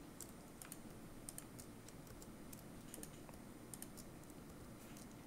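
Scattered faint clicks from a computer keyboard and mouse: shift-right-clicks selecting vertices and presses of the J key.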